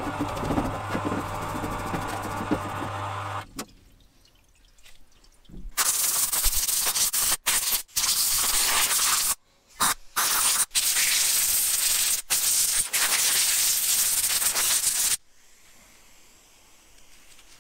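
A stiff brush scrubbing a rusty cast-iron brake caliper in a parts washer, with the washer's pump humming steadily, for the first few seconds. Then a loud hiss of compressed air blowing the caliper off, which starts about six seconds in, stops and restarts several times, and cuts off a few seconds before the end.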